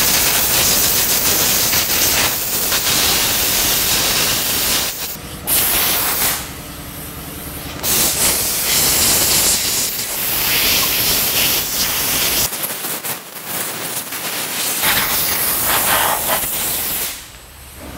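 Compressed-air blow gun hissing in several long blasts with short pauses, blowing leftover water out of a washed car's seams, mirror and crevices.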